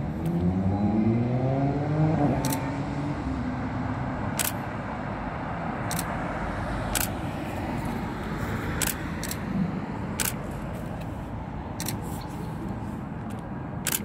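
Street traffic: a vehicle accelerating, its pitch rising over the first two seconds, then a steady rumble of traffic with sharp clicks every second or two.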